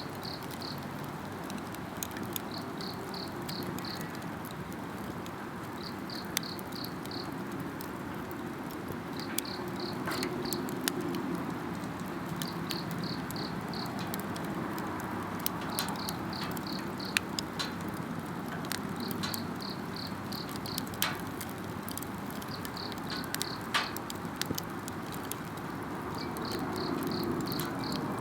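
Campfire crackling and popping with sharp irregular snaps over a steady burning hiss. An insect calls in short trills of about five quick high pulses, repeating every three seconds or so.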